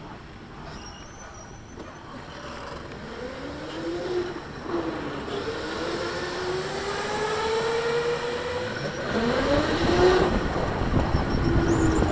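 Electric go-kart motor whining as the kart drives, its pitch rising and falling with speed, over tyre and track noise. Quiet for the first few seconds, then louder from about three seconds in.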